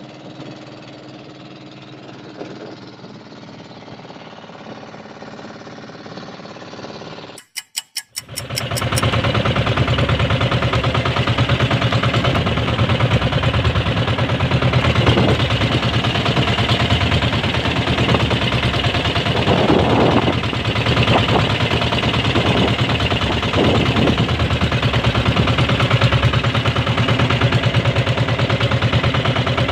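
Engine of an outrigger fishing boat running steadily. It is a quieter hum for the first quarter; after a brief stutter it comes in much louder and close, with a fast, even beat.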